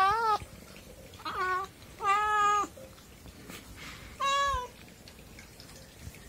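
Domestic cat meowing four times, short calls that rise and fall in pitch, the longest about half a second and the last about four seconds in.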